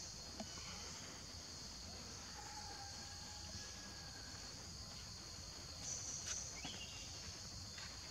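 Forest insects buzzing in a steady high-pitched chorus, swelling slightly about six seconds in, with a few faint clicks near the end.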